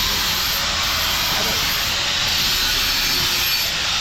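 Gas torch flame hissing steadily while it heats a bent alloy wheel rim before the bend is hammered straight.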